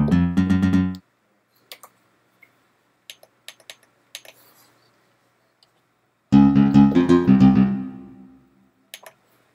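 Sampled plucked-guitar presets played from the MPC Renaissance pads. One note sounds at the start and stops after about a second. Another comes about six seconds in and rings out over about two seconds. Between them are a few faint clicks of buttons being pressed on the controller.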